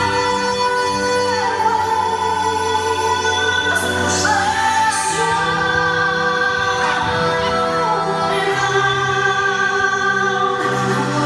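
Music with singing: a voice holding long notes over sustained chords, sliding between pitches now and then.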